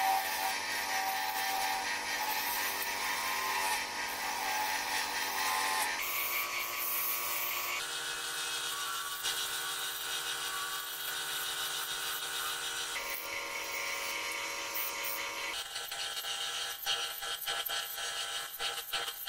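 Wood lathe running while a hand-held gouge cuts a spinning wood spindle: a steady hiss of cutting over the lathe's hum. The sound shifts abruptly several times and turns more uneven and scratchy, with quick clicks, in the last few seconds.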